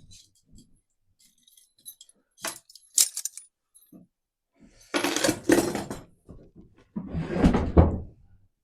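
Old steel animal traps and their chains clinking and jingling as they are handled, with two sharp metallic knocks about two and a half and three seconds in. Near the middle and again near the end come two longer, louder rushes of noise, each about a second long.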